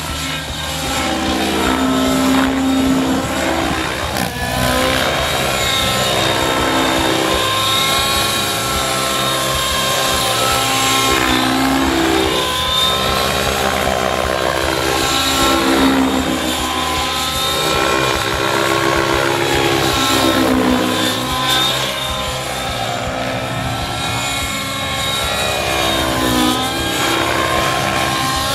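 YS 91 SRS nitro engine and main rotor of an Align T-Rex 700N radio-controlled helicopter flying 3D aerobatics. The engine note rises and falls over and over as the pitch loads it through manoeuvres and passes. The engine is loaded by wide-chord 64 mm blades at 13 degrees of pitch, set up to try to bog it.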